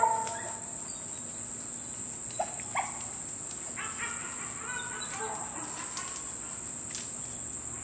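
A steady high-pitched insect drone, with a few faint, distant calls of beagles baying on a rabbit's trail.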